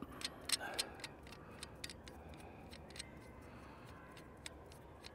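Scattered faint clicks and light knocks, a few louder ones in the first second, from handling a hunting camera arm and its add-on 3D-printed bracket.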